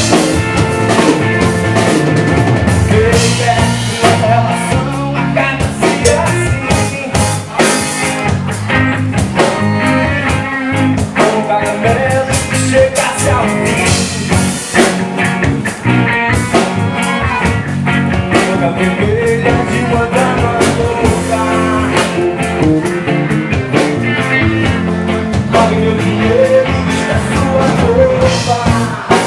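Live rock band playing, with drum kit, guitar and bass.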